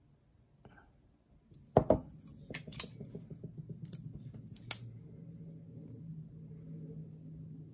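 Small metal parts being handled on a tabletop: a Benchmade Bugout folding knife and a small screwdriver. After a quiet second and a half come a handful of sharp metallic clicks and taps, over a faint low hum.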